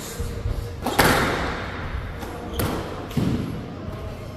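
Squash rally: several sharp hits of racket on ball and ball off the court walls, ringing in a large hall, the loudest about a second in.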